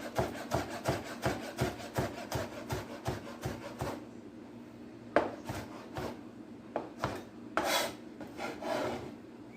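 Kitchen knife chopping scallions finely on a cutting board: quick, even chops at about four a second for roughly four seconds, then a few separate slower cuts.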